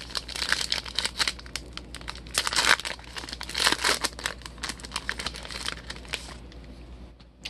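Foil trading-card pack wrapper crinkling and crackling as it is handled and torn open, with many small sharp crackles; it dies down for the last second or so.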